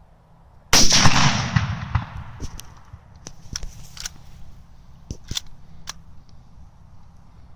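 A single gunshot from a Mosin-Nagant M38 carbine firing 7.62x54R, about a second in, very loud and dying away over roughly a second. A few sharp clicks follow over the next few seconds.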